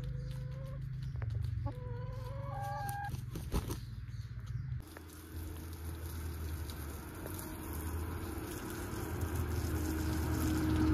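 Hens clucking: a few short pitched calls in the first three seconds. About five seconds in the sound changes abruptly to a steady hiss.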